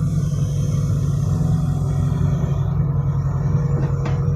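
Loaded six-wheel dump truck's diesel engine running hard through a very loud exhaust, a steady low rapid pulsing, as the truck works to drive out of soft laterite where it is stuck.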